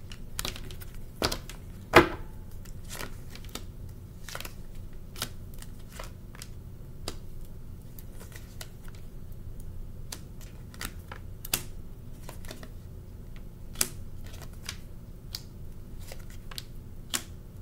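Tarot cards being shuffled and handled: irregular soft snaps and taps, the loudest about two seconds in, over a steady low hum.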